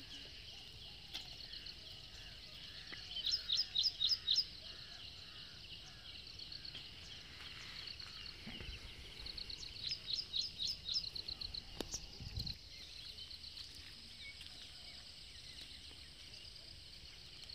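Bird song from surrounding scrub: several bursts of quick, sharp, high-pitched repeated notes, about five a second, the loudest about three seconds in and again about ten seconds in, over a faint low outdoor background.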